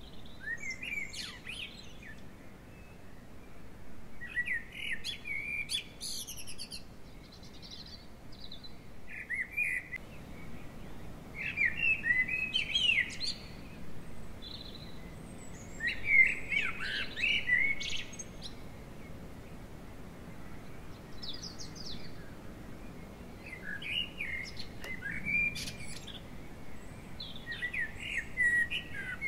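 A songbird singing short, varied phrases of chirps and warbles, each about one to two seconds long, repeated every few seconds.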